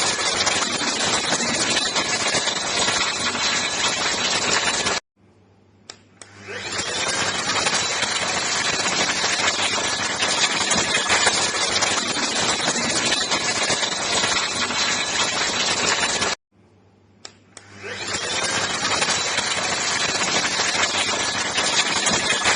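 ENOLUX ST7000 cordless handheld vacuum cleaner running with a steady, loud motor and airflow noise. About five seconds in, and again about sixteen seconds in, the sound cuts out abruptly. After a small click, the motor spins back up over about a second.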